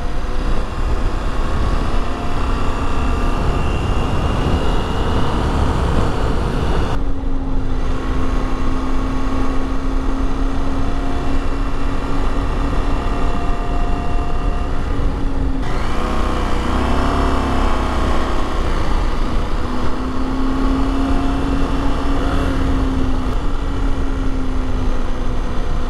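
KTM 890 Adventure parallel-twin engine running under way, its steady note mixed with constant wind noise. The engine note wavers and changes pitch about two-thirds of the way through.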